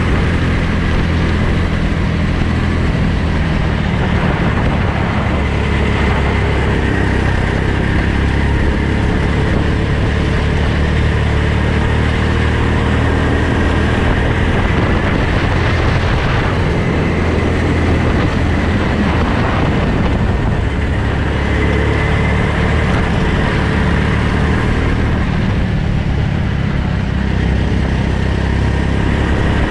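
Go-kart engine running hard through a lap, heard from the driver's helmet, its note rising and falling as the kart accelerates and slows.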